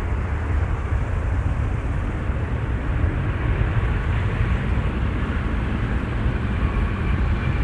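Jet airliner engine noise at the runway: a steady, deep roar with no rise or fall.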